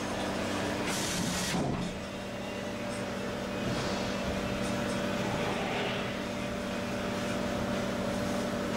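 Indexing-turntable blast cabinet running a dry cycle: a steady motor hum with a short hiss about a second in and a falling whine as a drive slows, after which the hum picks back up about three and a half seconds in.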